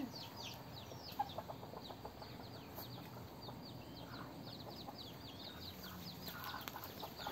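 Domestic chicks peeping over and over, many short, high, falling cheeps: the contact calls of chicks left below while the mother hen roosts up in a tree. A few lower hen clucks come about a second in.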